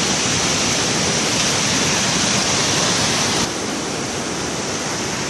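Waterfall in flood from rain and snowmelt, a loud, steady rush of water; the sound drops a little about three and a half seconds in.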